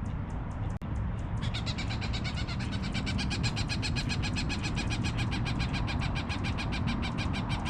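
A nesting bird overhead gives a rapid, steady run of short repeated call notes, about ten a second, starting about a second and a half in. It is an alarm or scolding call, warning an intruder off its nest.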